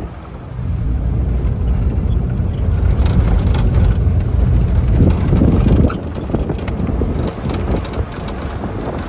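A 4x4 jeep on the move: a steady low rumble of engine and tyres, with a few knocks and rattles. The rumble eases slightly about six seconds in.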